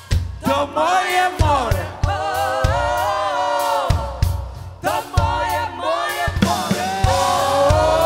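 Live rock band over a stadium PA: several voices sing long held notes together over drum kit and bass, with a brief drop in the singing about halfway through.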